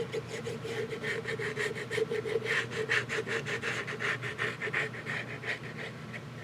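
Glue being rubbed quickly back and forth onto a strip of cardstock, a rapid scratchy rubbing at about four to five strokes a second, over a faint steady hum.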